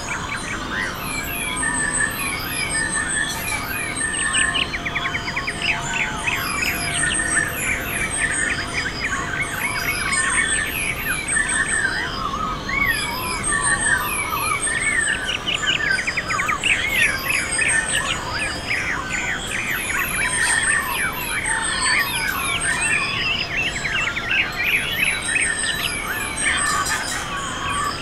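Many birds singing and calling at once, a dense, continuous chorus of chirps and trills.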